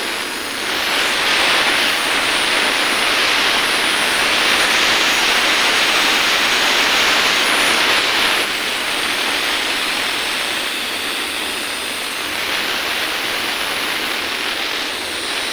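Steady rushing noise with no clear pitch, louder from about a second in until about eight seconds in.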